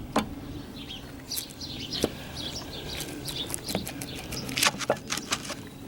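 Metal clutch parts clinking and knocking as they are handled and set down: scattered sharp clicks, with a few short high chirps between them.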